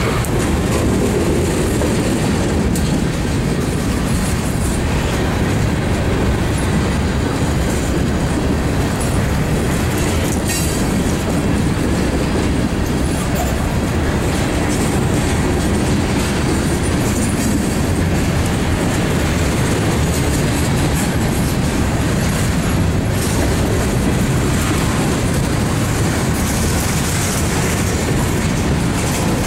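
Freight train cars rolling past close by, a lumber-loaded flatcar and then hopper cars: a steady rumble of steel wheels on rail with scattered clacks over the rail joints.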